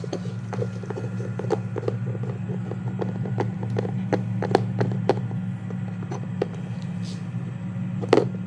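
Dogs gnawing on chew bones: irregular sharp clicks and crunches, the loudest near the end, over the steady low hum of an idling engine.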